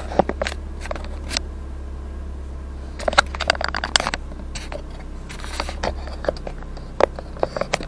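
Handling noise from the camera being gripped and adjusted: rubs, scrapes and sharp clicks against it, thicker about three seconds in, over a steady low hum.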